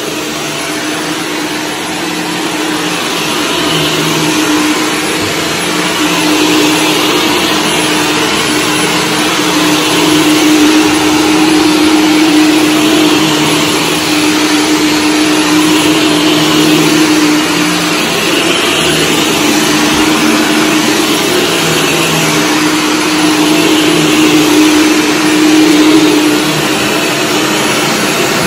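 Shark Stratos upright vacuum running on carpet: a steady motor whine with the brushroll sweeping the pile, its low hum swelling and fading every few seconds as the vacuum is pushed back and forth.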